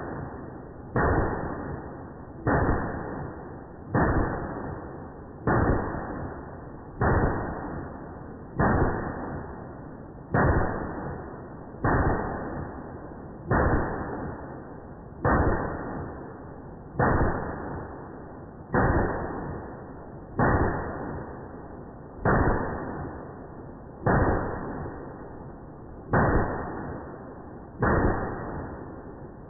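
Shots from a 5.56/.223 AR-15 pistol in slowed-down audio. Each shot is a deep, drawn-out boom with a long fading tail, about one every 1.7 seconds, roughly eighteen in all.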